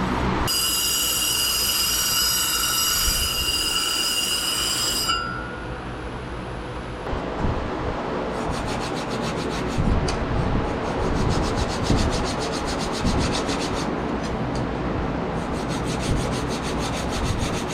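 Wootz steel blade ground flat on a disc sander. A steady high whine runs for the first five seconds or so and then stops. After that comes a rough, continuous scraping and rubbing of steel against the abrasive.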